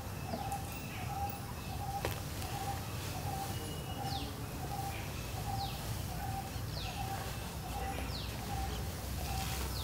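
Birds calling: one repeats a short, even note about twice a second, while another gives a quick, high, falling whistle about once a second, over a steady low rumble of background noise.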